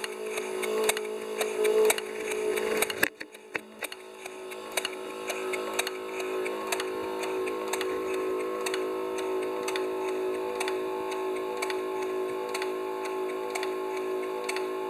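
A 5-inch gauge Heisler locomotive's geared engine and truck drive running on compressed air at about 8 psi for a transmission test, giving a steady, even clicking over a constant hum. About three seconds in it drops away sharply, then builds back up into a steady run.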